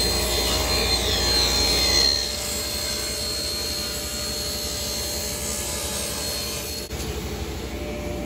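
Table saw running and cutting a plywood panel as it is fed through the blade. The sound is louder for the first couple of seconds, then continues a little quieter.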